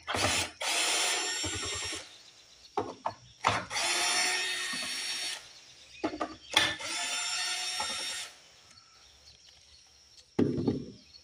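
Cordless drill with a 5/16 nut driver backing out three screws from a push-mower engine's top cover: three runs of the motor, each about two seconds long. A short knock follows near the end.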